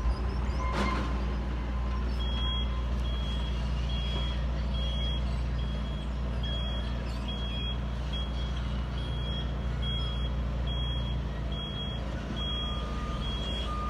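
Heavy construction vehicles running steadily, with back-up alarms beeping: a lower-pitched alarm about a second in and again near the end, and a higher-pitched one beeping a little faster than once a second through the middle.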